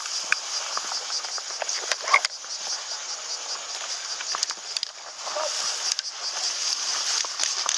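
Steady high-pitched insect chorus, with rustling of tall grass and scattered sharp clicks as a player pushes along a grassy path.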